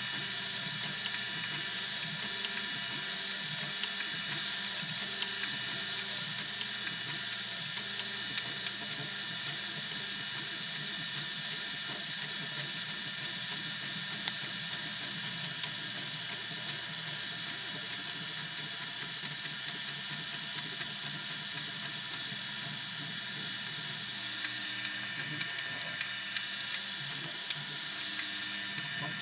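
Desktop FDM 3D printer at work: its stepper motors buzz in shifting, repeating tones as the print head moves back and forth, over a steady whir from the extruder's cooling fan.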